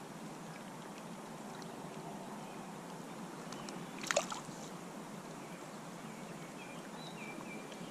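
Creek water running steadily, with one brief splash about four seconds in.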